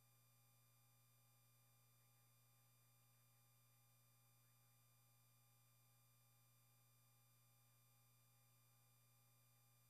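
Near silence: only a faint, steady electronic hum and hiss.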